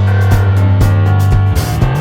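Background music: guitar over a sustained bass line with a steady beat, the bass note changing about one and a half seconds in.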